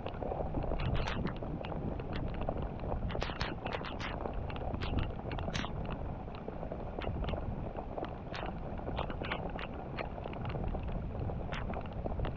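Wind buffeting the microphone in a steady low rumble, with scattered irregular sharp ticks and taps from around the kayak.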